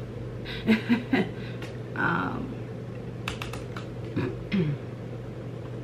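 Typing on a computer keyboard: scattered key clicks in short runs, with a tight cluster of clicks a little past the middle.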